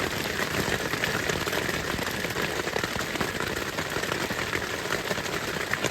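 Heavy rain pouring onto a camping tarp overhead: a steady, dense patter of countless drops hitting the sheet.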